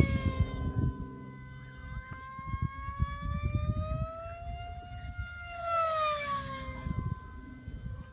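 Radio-controlled pylon racer model plane flying at high speed, its high-pitched engine whine sliding in pitch: rising as it comes in, highest about five seconds in, then dropping as it passes and pulls away. A low rumble lies underneath.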